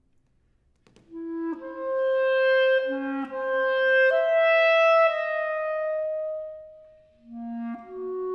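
Unaccompanied clarinet playing a slow phrase. After about a second of silence it enters on long held notes that step upward and swell, then dies away about seven seconds in before the next phrase begins.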